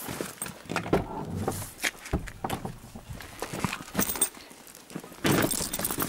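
Footsteps on grass and rustling handling noise, with scattered clicks and knocks as a car's rear door is opened.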